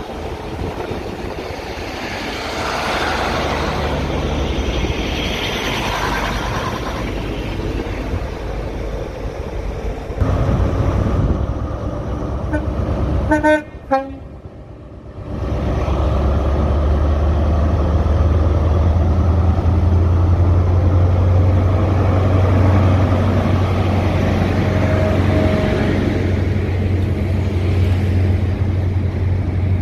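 A Class 153 diesel railcar pulling away, then a brief horn toot about halfway through. After it, the diesel engine of HST power car 43004 runs hard with a strong, steady low hum as the train departs and its coaches roll past.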